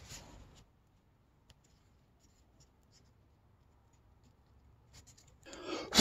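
Near silence for most of it, with faint rubbing at the start and a scratchy rustle of hands handling a hot-glued EVA foam strip that builds up near the end.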